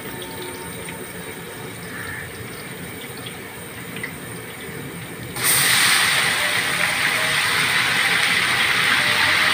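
Liquid faintly bubbling in a large cooking pot, with a few small ticks. About five seconds in, a loud, steady hiss starts abruptly and carries on.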